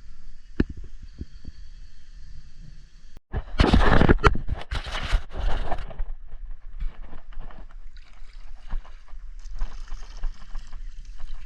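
Water splashing and gurgling around a kayak, loudest for a couple of seconds starting about three and a half seconds in, with scattered small knocks and scrapes.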